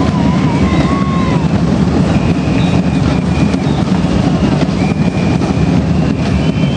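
Murga drum section of bombos (bass drums with cymbals) beating a dense, steady rhythm, with whistles blowing short held notes over it, one of them warbling near the start.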